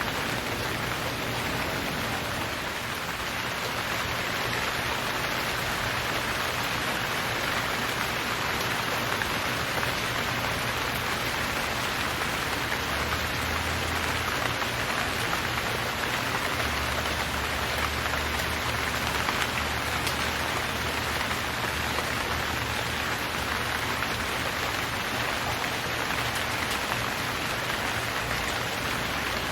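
Steady, heavy rain falling, a dense even hiss of drops on surfaces, with a faint low rumble underneath in the middle of the stretch.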